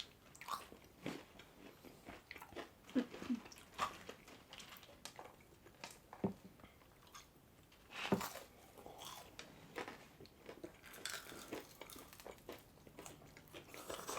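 Mukbang-style eating of pulled pork sandwiches and crispy fries: biting and chewing, with irregular short crunches and mouth noises.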